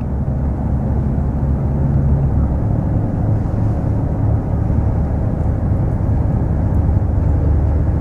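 A passenger boat's engine running steadily, a loud, even low rumble heard from on board.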